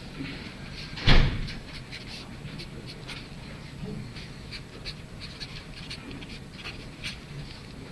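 A single loud knock about a second in, over low room noise with faint scattered taps and scratches.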